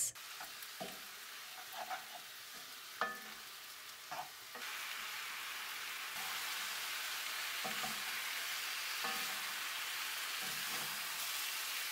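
Spiced lamb pieces sizzling as they fry in oil in a cast-iron pot, stirred with a wooden spoon that scrapes and knocks against the pot now and then. The sizzle gets louder about four and a half seconds in.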